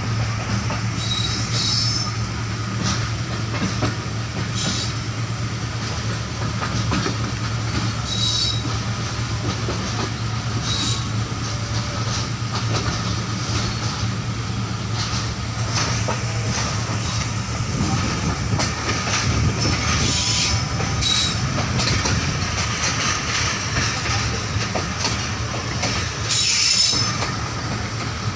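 Passenger train pulling out of a station, heard from inside a coach at an open window: the steady rumble of the carriage with wheels clicking over rail joints, and several short, high-pitched wheel squeals.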